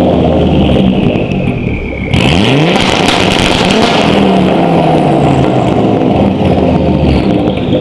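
Volvo S60's turbocharged 2.5-litre five-cylinder (B5254T2) revving through a 3-inch straight-pipe exhaust with no mufflers, with a high turbo whistle. The whistle falls as the revs drop, then about two seconds in the engine revs up sharply and holds high, and near the end the whistle falls away again as the revs come down.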